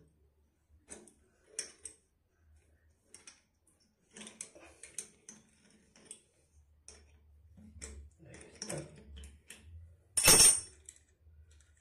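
Small metal clicks and scrapes of a wrench turning the nut on a toilet mounting bolt held with locking pliers, with one loud sharp metallic clack about ten seconds in.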